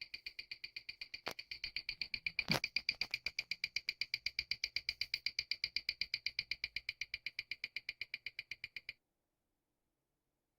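Mechanical watch movement ticking evenly at about seven beats a second, sharp ringing ticks from the lever escapement, showing that the balance and pallet fork are working again. A louder knock sounds about two and a half seconds in, and the ticking cuts off suddenly near the end.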